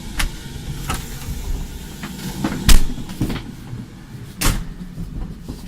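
Inside a moving Talgo passenger car: a steady low running rumble with irregular sharp knocks and clunks, the loudest a little under three seconds in and another about four and a half seconds in.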